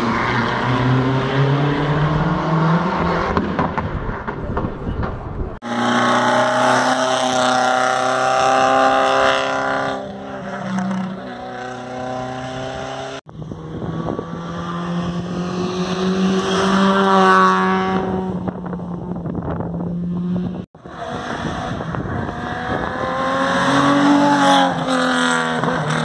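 Historic rally cars driven hard on a closed stage, one after another: each engine revs up and down through the gears as the car approaches. The sound cuts abruptly from one car to the next three times.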